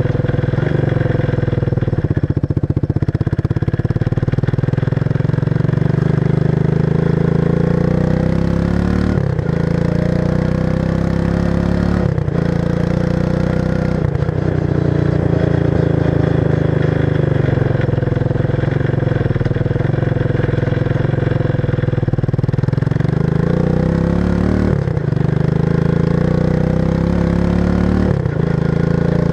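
1994 Suzuki King Quad 300 ATV's single-cylinder four-stroke engine running through a stock muffler with its baffles removed and its insides modified. The engine note rises and falls as the engine speeds up and slows down, with several brief breaks in the note.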